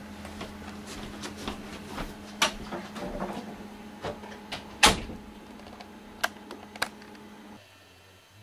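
A few sharp clicks and knocks over a steady low hum, the loudest knock about five seconds in. The hum cuts off near the end.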